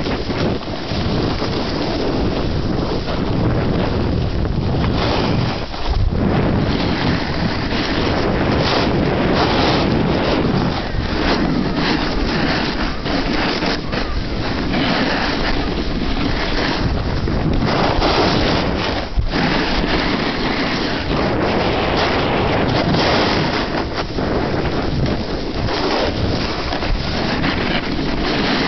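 Wind rushing over the microphone of a handheld camera while riding, mixed with the steady hiss and scrape of a snowboard sliding over snow.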